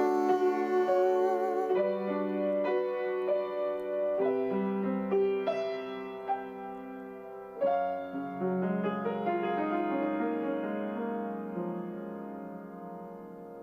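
Piano accompaniment playing the closing chords of a slow ballad, the last of which is struck about two-thirds of the way in and left to ring and fade out.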